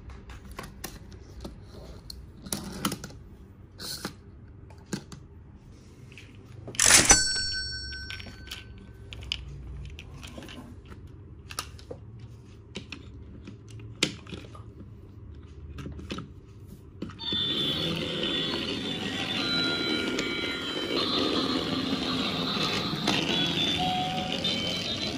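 Small plastic clicks and knocks of toy train pieces being handled and coupled on a wooden table, with one louder clack about seven seconds in. Then, about two-thirds of the way through, a battery-powered toy train engine switches on: its motor runs steadily under a tinny, shifting melody.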